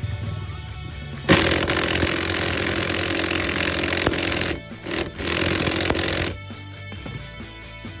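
A power tool running hard on a seat bolt, in two runs: about three seconds, a brief stop, then about another second. Background music plays throughout.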